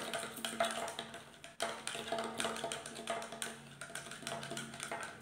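A small spoon stirring an aloe vera gel mixture in a glass jar, clicking and clinking against the glass in quick, irregular strokes.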